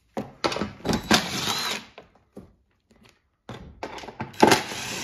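Cordless impact driver hammering 10 mm bolts out of the plastic under-engine shield in two runs: one from about half a second to two seconds in, and another, louder one starting about three and a half seconds in.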